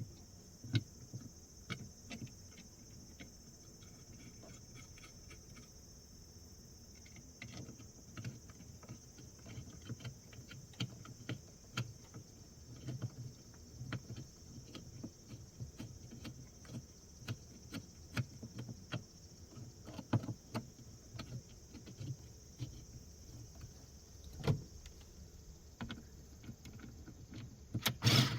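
Irregular light clicks and knocks of tools and parts being handled during engine work, with a few louder thumps, over a steady high insect trill.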